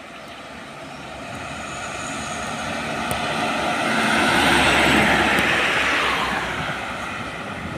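Light crane truck driving past: its engine and tyre noise build up, peak about five seconds in, then fade as it goes by.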